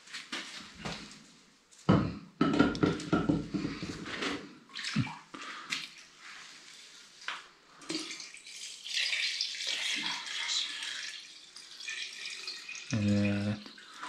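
Whey being poured from a plastic basin into a glass jar, a steady splashing stream through the second half as the jar fills. Before it come a few knocks and handling sounds, and a short voice is heard near the end.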